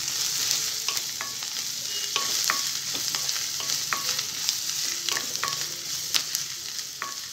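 Chopped onions and ground spices sizzling in hot oil in a nonstick kadhai as a wooden spatula stirs them: a steady sizzle with frequent short knocks and scrapes of the spatula against the pan.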